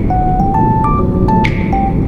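Background music: a melody of short keyboard notes stepping up and down, with a soft swishing hit about every second and a half, over a steady low rumble.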